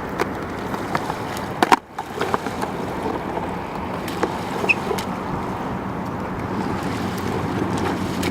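A board rolling and sliding over rain-wet pavement: a steady rushing noise with scattered clicks and knocks, broken once by a short gap about two seconds in.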